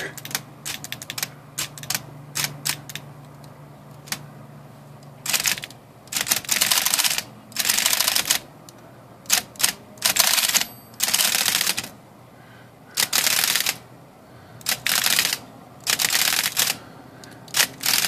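Smith Corona electric typewriter with its motor humming and typebars clicking, followed by about ten short, loud spray bursts of hiss aimed into the typebar segment and basket to flush out dirt and old lubricant.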